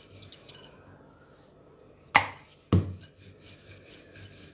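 Wooden rolling pin rolling out roti dough, giving quick repeated clicks and knocks as it goes back and forth. The rolling pauses about a second in, two louder knocks come a little past two seconds in, and the rolling clicks resume.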